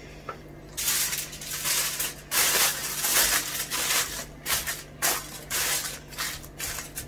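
Aluminium foil crinkling and rustling in irregular bursts as it is pressed and crumpled down over a cooking pot, starting about a second in.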